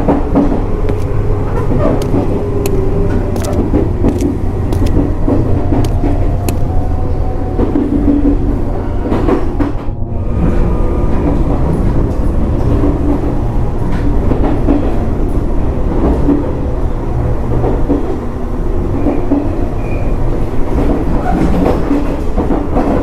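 Train running: a steady, loud rumble with scattered clicking of wheels over the rails, dipping briefly about ten seconds in.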